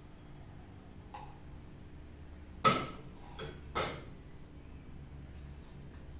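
Kitchen utensil knocking against a pot or bowl: a faint clink about a second in, then three sharper knocks a little past halfway, the first the loudest.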